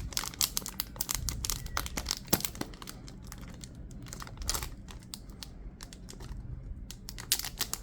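Crinkling and tearing of packaging as a sealed card-game deck box is worked open by hand, in dense, irregular crackles and clicks, busiest at first and again near the end.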